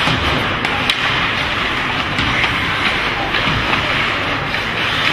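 Ice hockey play on the rink: a steady scraping hiss of skates on the ice, broken by a few sharp clicks of sticks and puck.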